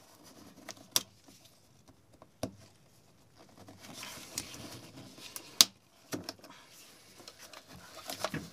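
A small pick and gloved fingers working the plastic quick-connect clips of a fuel line on a fuel pump module: scattered sharp clicks, the loudest a little past halfway, with light scraping before it.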